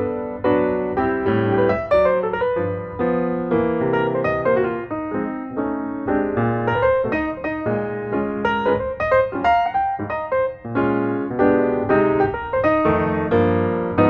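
Background piano music: a continuous run of quick melodic notes.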